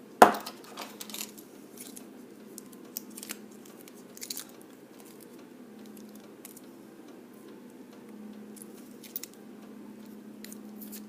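Small metallic clicks and scrapes of a freshly picked challenge lock being handled and taken apart to reach its pins, with a sharp click about a quarter second in and scattered lighter clicks after. A steady low hum runs underneath.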